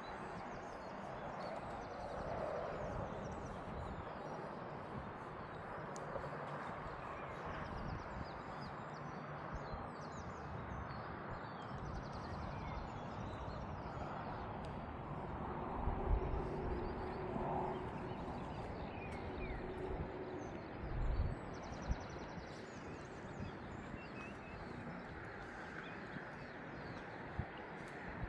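Outdoor canal-side ambience: a steady background hush with faint bird chirps, and a couple of low buffets about two-thirds of the way through, typical of breeze on the microphone.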